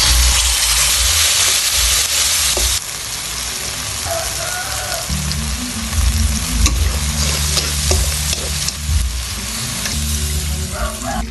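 Food sizzling as it fries in hot oil, loudest for the first few seconds and then settling to a softer sizzle, with a few sharp clicks of a utensil against the pan. Soft background music joins about halfway through.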